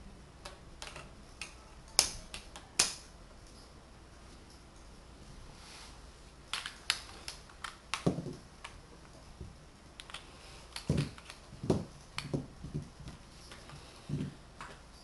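Magnetic wooden building blocks clicking together and being knocked down onto a table: scattered sharp clicks in small clusters, the two loudest about two seconds in, with a few duller wooden knocks in the second half.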